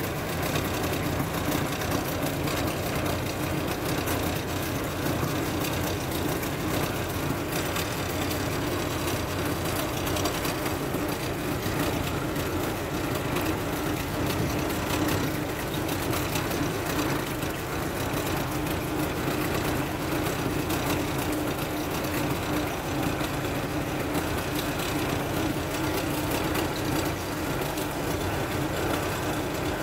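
Boat engine running steadily at an unchanging pitch.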